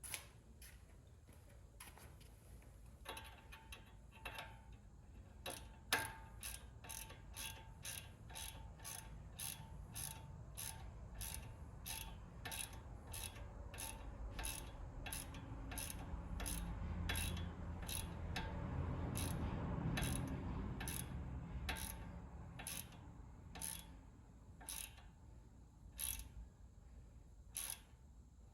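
Socket ratchet clicking in steady strokes, about two clicks a second, as a tie rod end nut is run down. A low rumble swells and fades in the middle.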